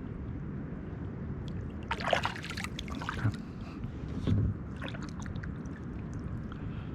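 Small splashes and light knocks of water and gear around a fishing kayak, a few short ones about two, three and four seconds in, over a steady low background noise.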